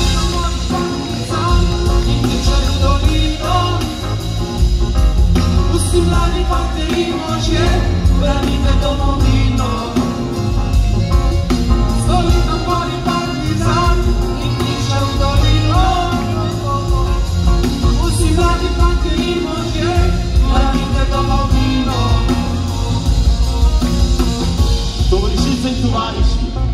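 Live band playing a song with male singing, violin, keyboard and drums, with a strong steady beat.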